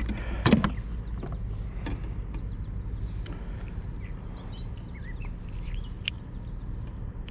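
Small handling clicks and knocks from a just-landed small smallmouth bass being unhooked in a kayak, with one louder knock about half a second in. A steady low rumble runs underneath, and faint bird chirps come a little past the middle.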